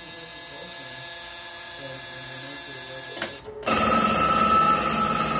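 A WWII ship's radio auto-alarm being triggered: a steady buzzing tone of a simulated 4-second dash, a click about three seconds in, then the alarm bell starts ringing loudly about a second later, signalling that four good dashes of the distress attention signal were counted.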